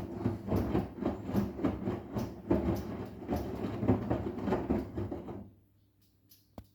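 Arçelik 10121 front-loading washing machine in its wash cycle with a sofa cover inside: the drum turns over a steady motor hum while the wet load sloshes and thumps in an uneven rhythm, two or three times a second. The drum stops about five and a half seconds in, and a single click follows near the end.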